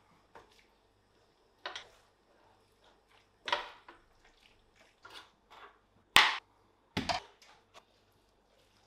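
Wooden spatula stirring chicken in a thick cream sauce in a stainless steel frying pan: a string of short scrapes against the pan, with one sharp knock about six seconds in.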